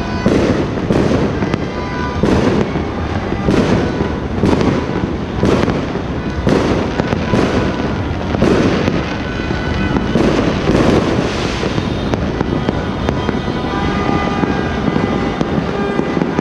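Many fireworks and firecrackers going off at once, a dense continuous din of overlapping bangs with a sharp crack every second or so.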